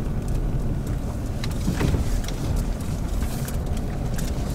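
A car driving over a gravel and dirt road, heard through an externally mounted camera. There is a steady low rumble of engine, tyres and wind, with scattered small ticks of stones under the tyres.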